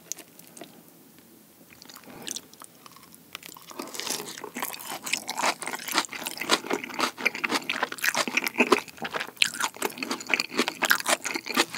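Close-miked crunching and chewing of a crisp fried, breaded cheese stick dipped in sweet-and-sour kimchi sauce. A dense run of crunches starts about three seconds in and goes on steadily.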